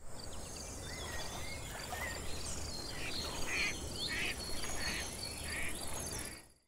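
Outdoor nature ambience of birds calling and chirping over a steady, pulsing insect trill, with a low rumble underneath. It fades out near the end.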